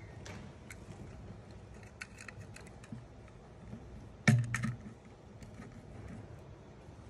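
Hands handling a reptile terrarium and a round dial thermometer-hygrometer gauge: scattered light clicks and taps, with one louder knock a little past four seconds in as the gauge is set against the enclosure.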